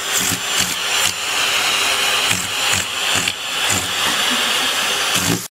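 Vacuum cleaner running steadily, its hose end held against a cat's mouth.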